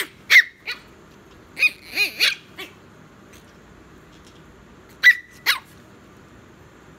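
Tiny long-coat chihuahua puppy yapping: short, high-pitched yips in quick runs, three at the start, four about two seconds in and two more about five seconds in.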